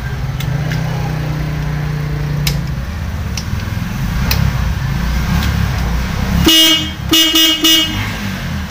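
The mini jeep's electric horn honks twice about six and a half seconds in, a short beep and then a slightly longer one, over a low steady rumble and a few scattered clicks.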